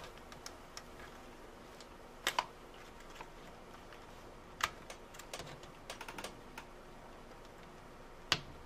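Faint scattered clicks and ticks, a few seconds apart with a short flurry past the middle, from a small hand tool prying at a stuck LCD inverter board in a laptop's screen bezel.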